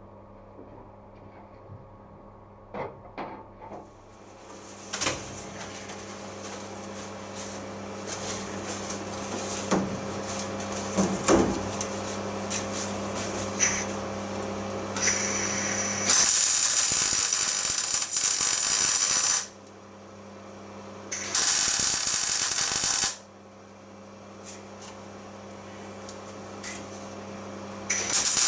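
Power tool working on the car body: a steady running sound with a low hum, then three loud bursts of a few seconds each.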